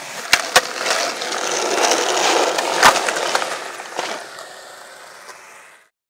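Skateboard wheels rolling on concrete, with two sharp clacks within the first second and one loud board impact just before three seconds in. The rolling fades away and then cuts off abruptly near the end.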